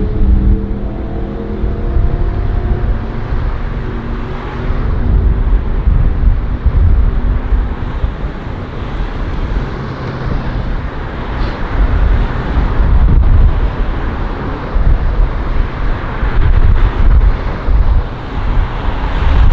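Strong wind buffeting the microphone in gusts over passing road traffic. In the first few seconds a vehicle goes by, its engine note falling as it passes.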